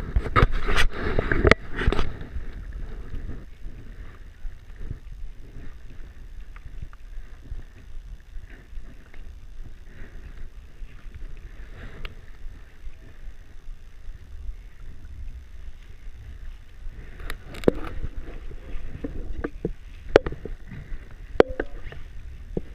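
Low rumble of wind on the camera's microphone. In the first two seconds there are loud knocks from a finger handling the camera, and a few sharp clicks come near the end.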